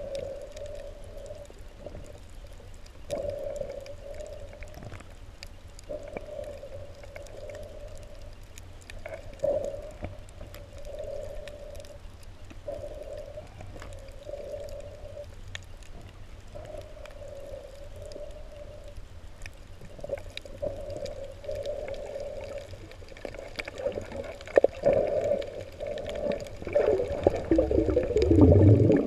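Muffled underwater sound in shallow water: a hum that comes and goes in stretches of a second or two over a low rumble, turning louder into rushing, gurgling water near the end.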